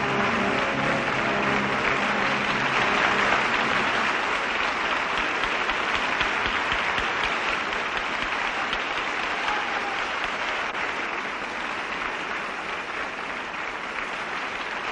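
A large audience applauding steadily, with music fading out during the first few seconds; the applause slowly dies down toward the end.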